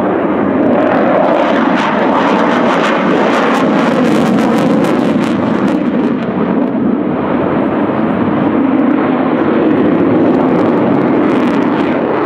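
Mikoyan MiG-29's twin Klimov RD-33 turbofans running with afterburners lit through a display manoeuvre: a loud, continuous jet roar with crackle in the upper range, strongest from about a second to six seconds in and again near the end.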